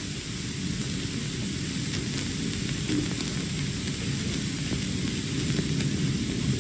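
Hiss and crackle of a worn 1940s film soundtrack, with muffled sound of a ship's crew cheering under the noise.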